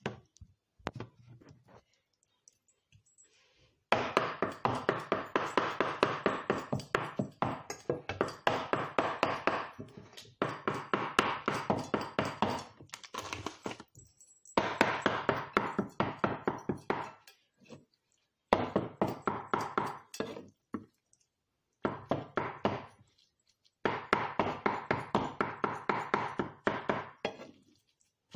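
Chef's knife rapidly chopping meat on a wooden chopping board, mincing it with quick knocks several a second. The chopping comes in runs of a few seconds with short pauses between, starting about four seconds in.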